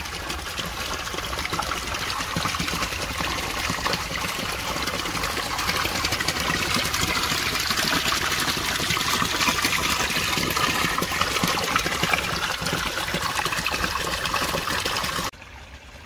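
Spring water pouring from a metal spout into a water-filled basin: a steady splashing trickle. It drops much quieter shortly before the end.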